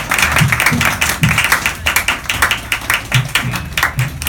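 Hand clapping from an audience as a live acoustic song ends, with a few low drum thumps among the claps.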